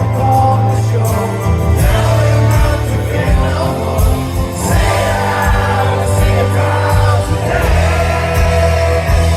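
Live rock band playing with a sung vocal over sustained bass notes.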